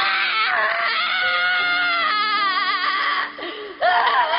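A young boy's long wailing scream with a wavering pitch. It breaks off briefly about three and a half seconds in, then starts again.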